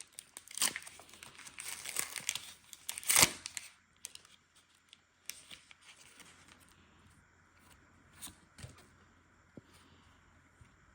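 Foil booster-pack wrapper crinkling and being torn open, in dense bursts over the first three and a half seconds, loudest at about three seconds in. After that come only faint, scattered light clicks and rustles.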